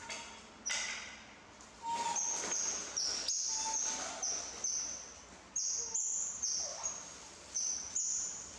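Baby macaques giving a string of about ten short, high-pitched squeals, each dipping slightly in pitch at its start, from about two seconds in, over some rustling of a plastic food bag.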